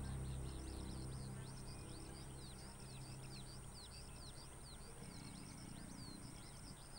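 Many small birds calling, a dense chatter of short, quick down-slurred chirps, several each second. A low steady hum fades out over the first few seconds.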